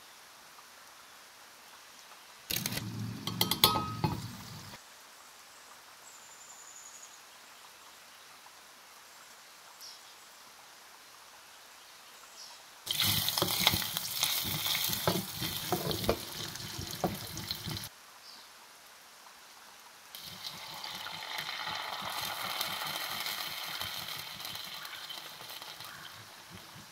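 Butter sizzling and crackling as it melts in a hot steel pot for about five seconds, then a smoother sizzle that swells and fades away as red hot sauce cooks in the melted butter. A brief clatter with clinks comes about three seconds in.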